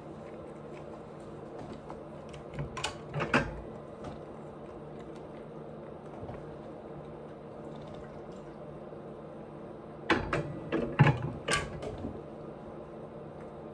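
Close-miked eating sounds: wet mouth clicks and smacks of chewing, in a short cluster about two and a half seconds in and a longer, louder one about ten seconds in, over a steady low hum.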